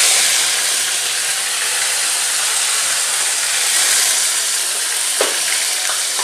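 Chopped onion just tipped into hot oil, sizzling loudly and steadily in a deep pan.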